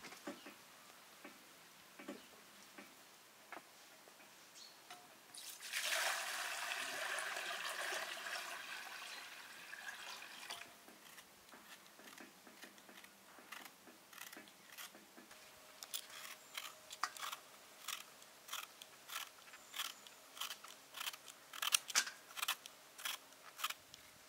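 A steady hiss starts about five seconds in and lasts about five seconds. Later, a small knife peels a raw quince in short scraping strokes, about two a second.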